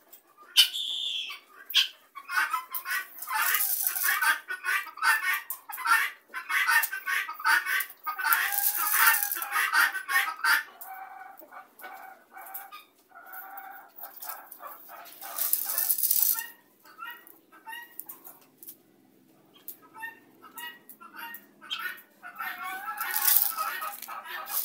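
Flock of helmeted guineafowl calling: harsh, rapidly repeated chattering calls in loud bouts, thinning out partway through and picking up again near the end.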